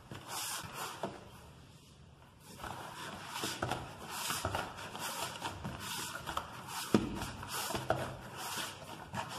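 Hands kneading a soft bread dough in a plastic bowl: repeated squishing, rubbing strokes as the dough is pressed and folded, with a light knock about seven seconds in.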